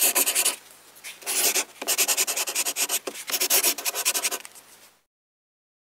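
Scratchy brush-stroke sound effect of an animated intro: rough rubbing on paper in several bursts, the longest about two and a half seconds. It fades out and stops about five seconds in.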